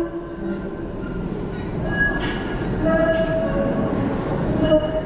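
TTC Flexity Outlook streetcar running on its rails: a steady low rumble, with wheel squeal as several held high tones that come and go and shift pitch.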